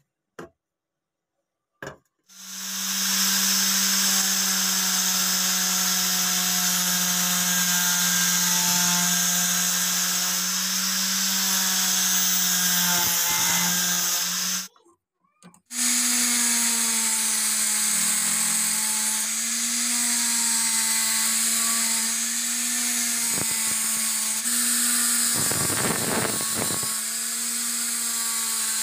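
Angle grinder with a sanding pad running steadily against a wooden cleaver handle. It starts up about two seconds in, stops briefly in the middle, then starts again and keeps running, with a rougher stretch near the end.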